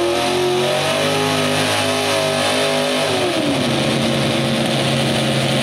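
Modified pulling tractor's V8 engine running flat out under load while pulling the sled. Its pitch drops about three seconds in and holds steady at the lower engine speed.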